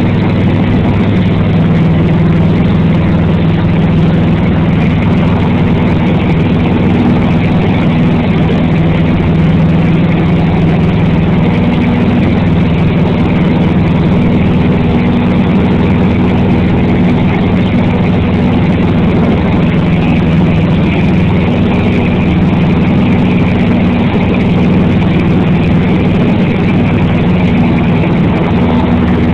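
Cessna 150's four-cylinder Continental O-200 engine and propeller droning steadily at climb power, heard from inside the cabin while climbing out after takeoff.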